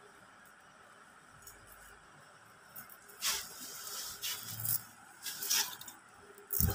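Yellow georgette suit fabric being unfolded and handled close to the microphone: faint at first, then several loud rustling swishes from about three seconds in, with a short thump near the end.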